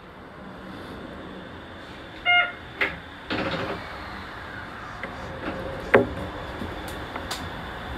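Shonan Monorail car standing at a station: a short beep about two seconds in, then the passenger doors sliding shut with a clatter, followed by a few sharp clicks over a steady background hum.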